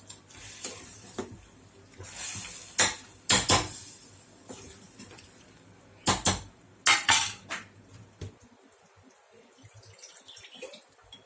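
A metal spoon knocking and scraping against a metal cooking pot as spices are stirred into the mutton: a few sharp clinks in two clusters, a couple of seconds apart, then quiet.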